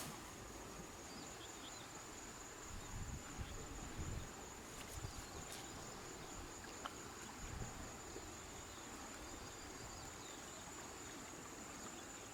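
An insect keeps up one steady, high-pitched unbroken trill. A few soft low bumps come between about three and eight seconds in.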